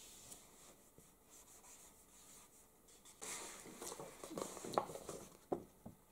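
A pen scratching faintly on a paper pad, then louder rustling and handling of paper pads from about three seconds in, with a few sharp clicks.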